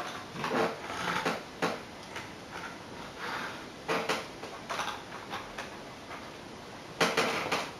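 Model trains being handled by hand, giving irregular small clicks and clattering knocks, the loudest group near the end.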